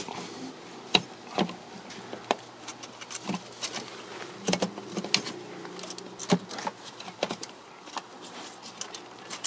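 Irregular light clicks and knocks as hands push and shift fuel pipes and connectors around a diesel fuel filter housing, over a faint steady hum.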